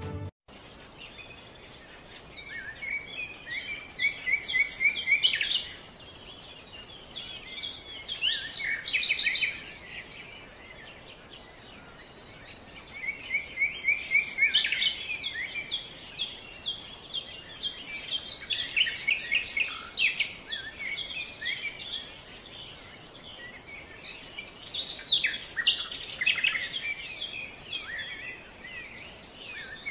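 Songbirds singing in repeated bouts of high chirps and trills, with a quiet steady outdoor hiss in the gaps between.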